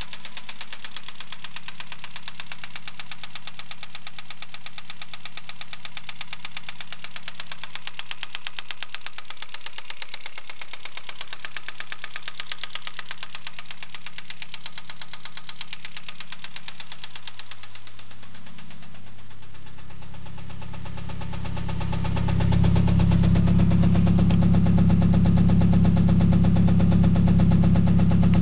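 Mazda BPT 1.8-litre turbo four-cylinder engine running with a rapid, regular knock. The owner first took it for piston slap; it proved to be a failing big-end (connecting-rod) bearing after only 200 km on a full rebuild. About 18 seconds in the knock fades under a deeper engine note that grows louder toward the end.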